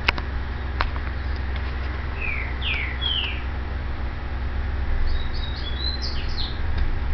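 Small bird chirping in the background: three quick falling chirps about two seconds in, then a fast run of higher chirps near six seconds. Under it a steady low rumble, with a couple of sharp clicks at the start.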